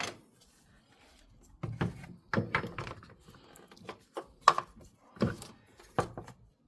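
A series of knocks and clunks from parts and tools being handled while a new accessory-belt tensioner is offered up to the engine, about six in all, irregularly spaced.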